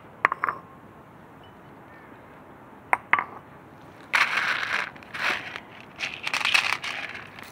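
Footsteps crunching through dry fallen leaves and undergrowth, in repeated bursts through the second half. A few sharp clicks come near the start, one with a brief metallic ring, and two more about three seconds in.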